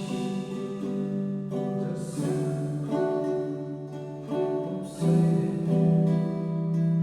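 Baritone ukulele strumming chords, with fresh strums about every one to three seconds and the notes ringing on between them.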